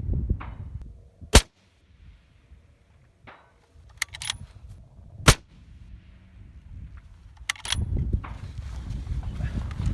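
Two shots from a bolt-action precision rifle, about four seconds apart, with a few sharp clicks between and after them. Wind buffets the microphone near the end.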